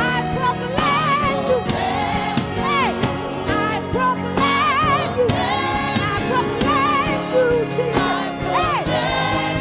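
Live gospel worship music: a singer's voice with wide vibrato over a band with steady drum beats, choir voices joining in.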